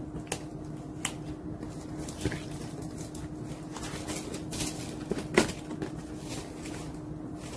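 Handling of a leather flap bag: soft rustling and a scatter of sharp clicks from its metal turn-lock and chain hardware, the loudest about five seconds in. A faint steady hum underneath.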